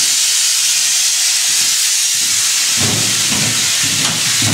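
Steady, loud, high hiss from the EP20 electric locomotive's machine-room equipment, with low knocks and rumbles joining in from about three seconds in.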